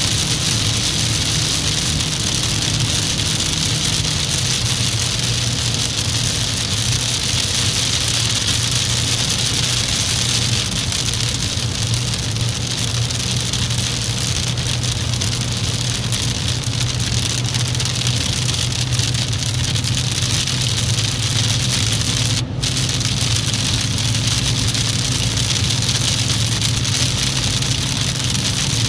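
Steady in-car road noise of a car at motorway speed in rain: a low engine hum under a constant hiss of tyres on the wet road and rain and spray on the windscreen.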